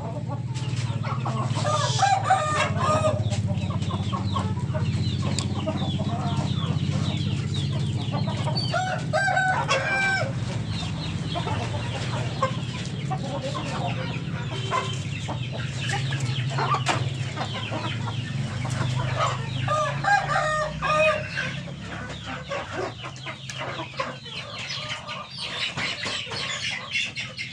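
A flock of Siamese game chickens clucking, with roosters crowing several times, over a steady low hum.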